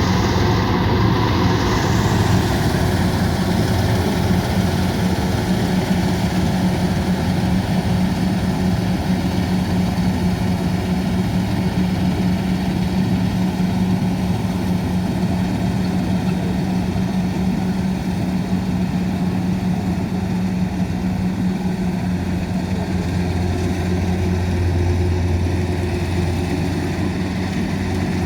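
Rice harvester's engine running steadily with a constant low hum, the lowest part of the hum growing stronger near the end.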